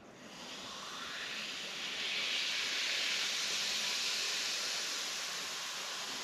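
Baking soda fizzing in a glass jar of white wine vinegar: a steady hiss of bubbles that swells over the first two seconds as the foam rises, then slowly eases off.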